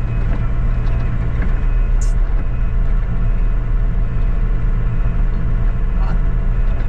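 Mini excavator's diesel engine running at a steady note while the machine is driven off a trailer. There is a short high click about two seconds in.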